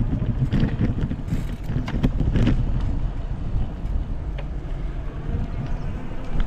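Wind buffeting the microphone of a camera on a moving bicycle, a dense, uneven rumble, with a few rattles in the first couple of seconds as the tyres cross bumpy paving.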